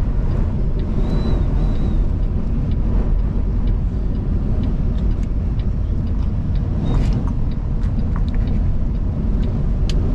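Steady low rumble inside a moving semi-truck's cab in high wind: engine, road and wind noise together, with a few faint clicks and rattles.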